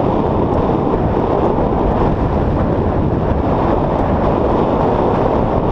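Strong headwind of about 35 km/h buffeting the microphone of a camera on a moving bicycle's handlebars: a loud, steady, low rushing noise.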